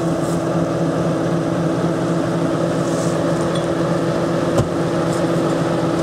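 A GAZ off-road truck's engine idling steadily, with an even low hum. A single short knock about four and a half seconds in.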